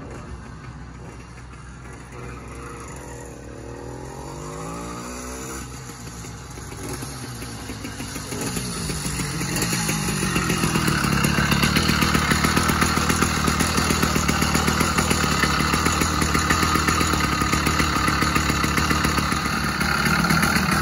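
80cc two-stroke bicycle engine kit on a Schwinn Stingray chopper, running on 32:1 premix. At first it is faint and revs up and down at a distance, then grows louder as the bike rides up to the mic, and for the second half it runs loud and steady close by.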